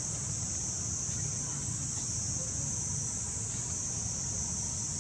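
Steady, high-pitched drone of insects, with a low, even rumble underneath.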